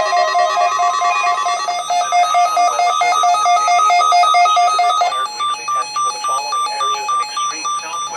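Several NOAA weather radios beeping their alerts for a Required Weekly Test, with high electronic beeps in fast alternating tones overlapping one another. About five seconds in, one set of beeps stops, and a broadcast voice starts under the beeping that remains.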